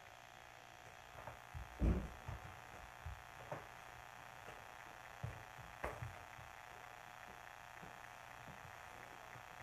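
Faint steady room hum with a few soft, low thumps and knocks, the loudest about two seconds in and a couple more near the middle.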